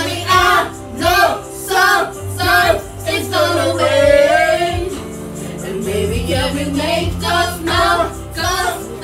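Background song: a sung lead vocal over a steady bass line.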